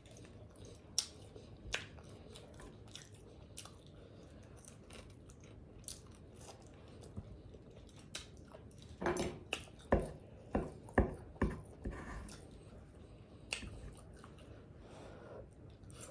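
Close-up chewing and mouth smacking while eating fried chicken wings, with scattered small crisp clicks and a run of louder short crunches and smacks about nine to twelve seconds in.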